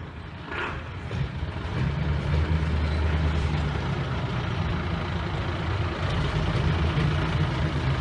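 Engines of vintage pickup trucks and a larger truck running at low speed as they drive slowly past, a steady low engine hum that swells over the first couple of seconds and then holds.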